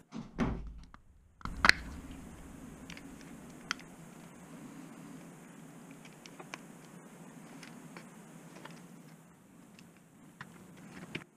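Cheap plastic laptop power-adapter case being opened by hand. There is a sharp crack about a second and a half in as the case gives, then scattered small clicks and handling noise as the halves are worked apart, over a low steady hum.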